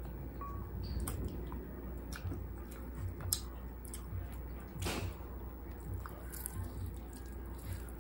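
Close-up wet eating sounds of someone eating roast chicken with her hands: chewing, lip smacks and finger sucking, with many short scattered clicks.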